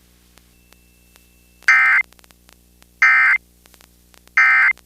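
Emergency Alert System end-of-message code: three short, loud bursts of SAME digital data tones, about a second and a third apart, marking the end of a broadcast severe thunderstorm warning.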